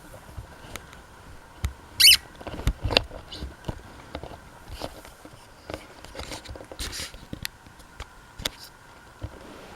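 Irregular handling noises: scattered clicks and knocks, with a brief hissing scrape about two seconds in.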